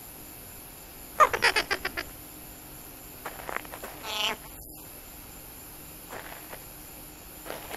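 Bird-like calls voicing clay creatures: a quick run of about eight short calls about a second in, then two single calls around three and four seconds, and a couple of faint ones later.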